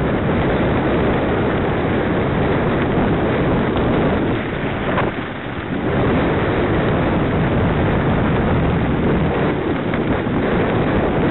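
Wind buffeting the microphone of a camera riding on a moving mountain bike, a steady loud rumble, with a brief lull about five seconds in.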